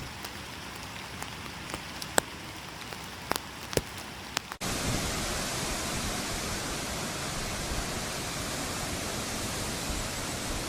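Steady rushing hiss of water, with a few sharp clicks in the first half; about halfway through it cuts suddenly to a louder, fuller rush.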